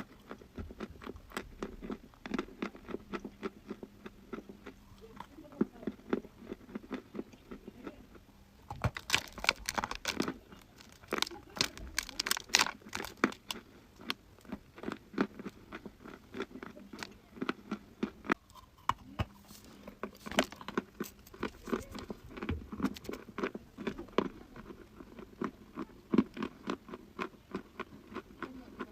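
Someone biting and chewing dry chalk, giving an irregular run of crunches that is densest about ten seconds in.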